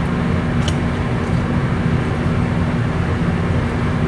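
Steady roar of a commercial kitchen's ventilation and burners with a constant low hum, and a faint click about half a second in.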